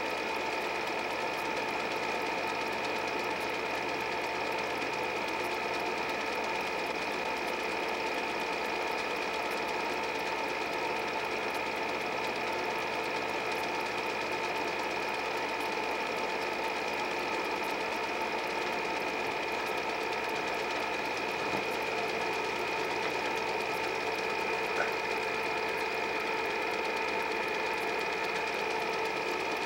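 An 8 mm film projector running, its motor and film mechanism making a steady mechanical whirr with a constant hum.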